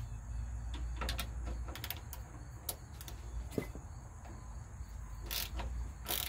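Ratchet wrench with a 13 mm socket clicking in short, irregular runs as a bolt holding a wiring loom to a truck frame is turned out.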